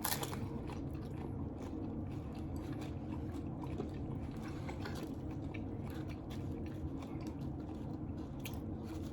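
Close-up mouth sounds of a person biting into and chewing a taco: a bite right at the start, then steady chewing with small scattered crunches and smacks over a constant low background hum.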